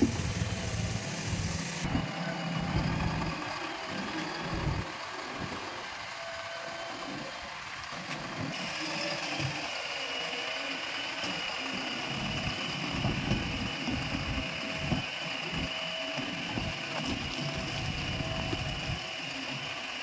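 JCB 3DX backhoe loader's diesel engine running steadily as the machine drives slowly with a loaded front bucket.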